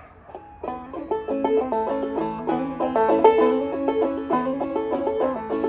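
Five-string banjo played clawhammer style in open A tuning, starting an old-time fiddle tune about half a second in with a quick, steady run of plucked notes.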